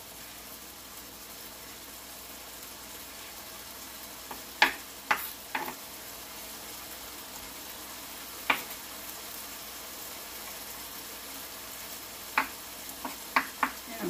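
Ground taco meat sizzling steadily in a skillet on the stove, with a few sharp knife chops on a wooden cutting board as tomatoes are diced: three about halfway in, one more later, and a quicker run of chops near the end.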